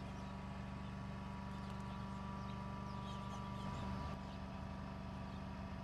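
A steady low mechanical hum, like a motor running, with a slight change in its low part about four seconds in.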